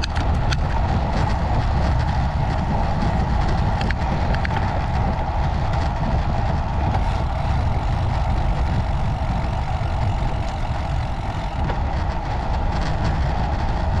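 Wind rumbling over the microphone of a moving bicycle, with a steady hum of tyres on pavement and small clicks and rattles from the bike.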